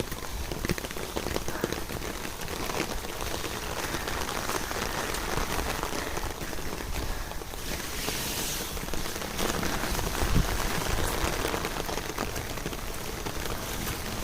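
Steady rain falling, with many scattered sharp drop ticks over an even hiss. The high hiss grows briefly louder about eight seconds in.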